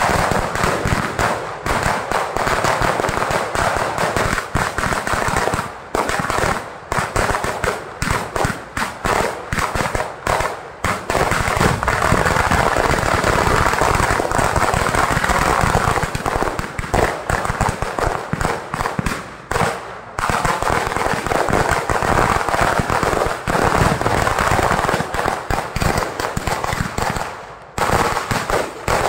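A ground-level barrage of firecrackers going off in very rapid, dense succession, a near-continuous crackle of bangs with a few short breaks.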